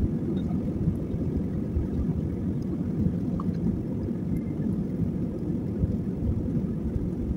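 Steady low rumble of an Airbus A320-family jet airliner rolling along the runway, heard from inside the cabin.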